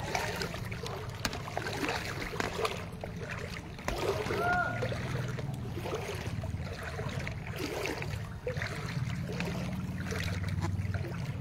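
People wading through thigh-deep floodwater: water swishing and splashing around their legs with each step.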